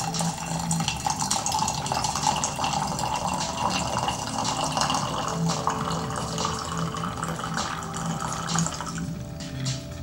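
Tea pouring in a steady stream from a Yixing clay teapot's spout into a glass pitcher, splashing as it fills. About nine seconds in the stream thins and the pouring sound falls away as the pot runs out.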